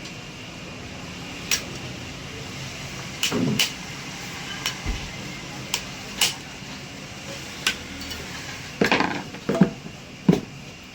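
Metal hand tools clinking and knocking against metal during compressor work: about ten irregular strikes, some in quick clusters near the middle and the end, over a steady background hum.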